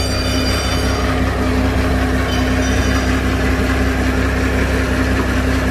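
Komatsu forklift engine idling with a steady low rumble and hum.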